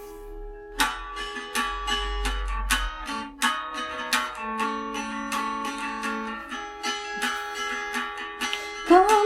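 Acoustic guitar playing the introduction of a worship song, a run of picked and strummed chords with each note ringing on. A singer's voice comes in at the very end.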